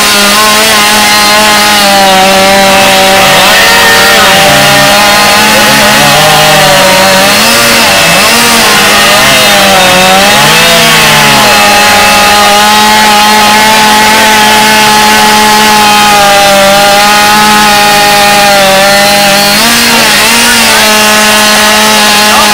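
Two-stroke chainsaw running flat out while cutting through a log, loud and steady; its pitch sags briefly a few times as the chain loads up in the cut, then climbs back.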